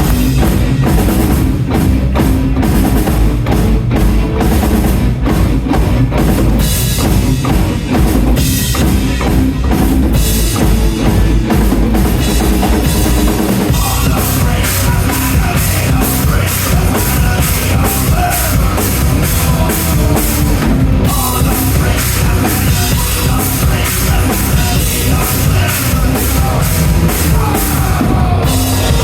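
Background rock music with a steady drum-kit beat, loud throughout, with a change in the arrangement about halfway through.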